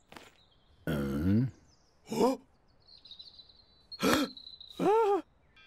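Cartoon characters' wordless vocal sounds: a low grunt-like murmur about a second in, a short one after two seconds, then two short rising-and-falling excited cries near the end. Faint birdsong chirps behind them.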